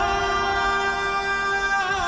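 Background music: a Punjabi love song, the singer holding one long note over the accompaniment.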